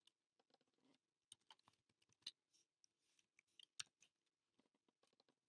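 Faint, irregular clicks of a computer keyboard and mouse, a few short strokes a second at low level.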